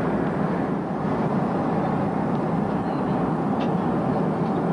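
Steady cabin noise inside a Boeing 737 airliner in flight, the engines and the airflow over the fuselage giving an even, unbroken rush.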